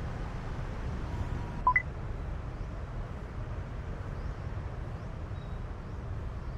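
Steady low rumble of outdoor city background noise, with one short electronic beep, stepping up in pitch, about a second and a half in.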